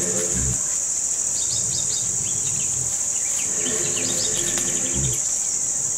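Insects in forest undergrowth keep up a steady, high-pitched drone. A lower sound comes in twice, near the start and again about four to five seconds in.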